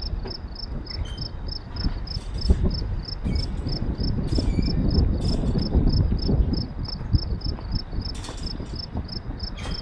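A stopped GO Transit commuter train with an MP40PH-3C diesel locomotive pushing at the rear, making a steady low rumble that is loudest about midway, with a few short knocks. Over it runs a steady high-pitched pulsing, about three pulses a second.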